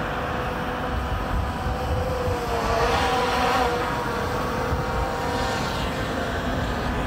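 Hubsan Zino 2 quadcopter's propellers humming overhead: a steady buzzing tone that wavers in pitch and swells slightly about three seconds in. Wind rumbles on the microphone underneath.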